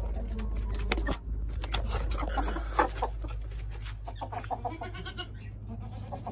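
Chickens clucking as they step out of an opened coop, with sharp knocks and clatter of the wooden coop door and its latch in the first three seconds.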